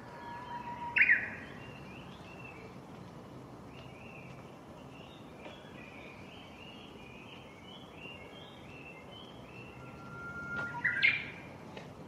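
Japanese bush warbler singing its "hoh-hokekyo" song twice, about a second in and again near the end: each time a long held whistle, then a quick, louder flourish of higher notes. Fainter bird calls chirp in between.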